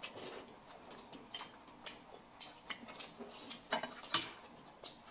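Quiet eating sounds at a table: irregular light clicks of chopsticks against china plates, with a couple of short slurps of noodles about four seconds in.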